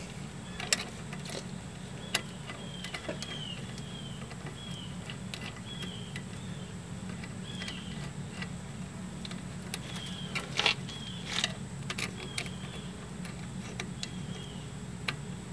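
Scattered light metallic clicks and taps as a brake-line banjo bolt with its sealing washers is fitted to a brake caliper and threaded in by hand, the loudest pair about ten and eleven seconds in. A steady low hum runs underneath, and a faint high chirp repeats a little more than once a second.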